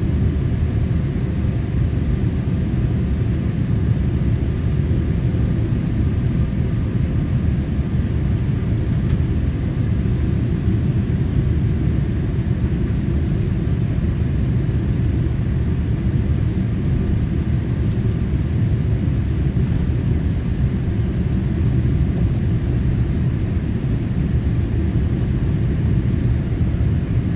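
Steady low rumble of an airliner in flight, heard from inside the passenger cabin: engine and airflow noise.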